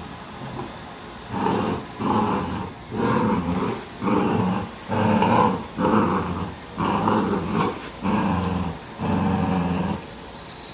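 Cavalier King Charles Spaniel puppies growling in play as they fight over a toy: a string of about ten short growls in quick succession, starting about a second and a half in.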